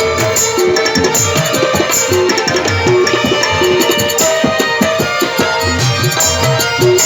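Tabla played in a quick, steady rhythm over an instrumental interlude of the song, with a sustained melody line above it.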